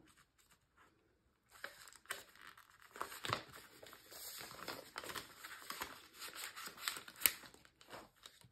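Faint crinkling and rustling of a banknote and paper cash envelopes being handled, with scattered small clicks, starting about a second and a half in.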